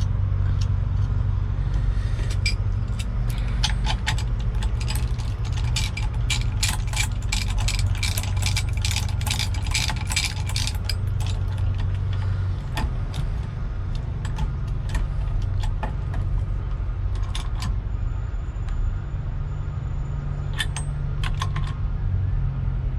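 Ratchet wrench clicking as the steering-shaft centre nut is run down and tightened: fast runs of clicks for several seconds, then a few scattered clicks. A steady low hum runs underneath.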